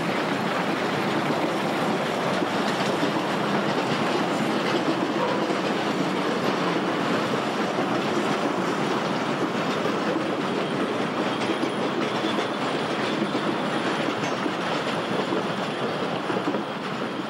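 Saxon IV K (Saxon-Meyer) narrow-gauge steam locomotive working a freight train of open wagons past and away, the engine and the rattle of the wagons and wheels on the rails running steadily and easing slightly near the end as the train draws off.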